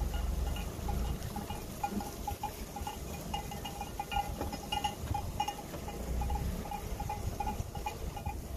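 A flock of sheep on the move with small bells clinking irregularly throughout, many short same-pitched rings, over a low rumble.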